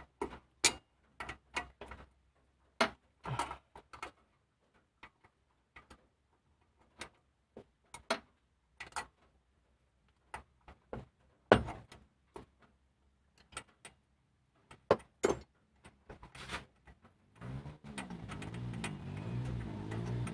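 Irregular metal clicks and clinks of a socket wrench and bolts as a car's throttle body is being unbolted by hand. Near the end a steady low hum comes in underneath.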